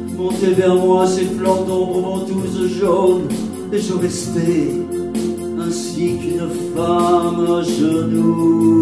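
A man singing long held notes over sustained, organ-like chords played on an electronic keyboard.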